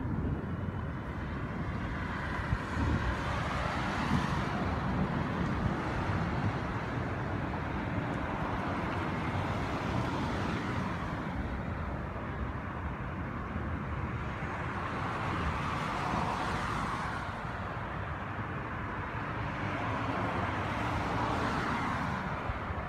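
Wind buffeting the microphone outdoors, with road traffic swelling and fading as cars pass every few seconds.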